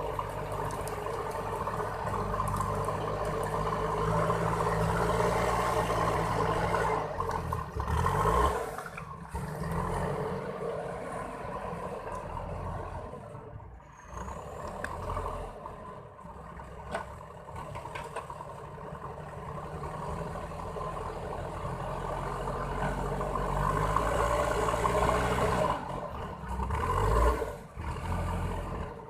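JCB 4DX backhoe loader's diesel engine working, its pitch rising and falling as the load changes. It drops quieter about halfway through, then builds up again.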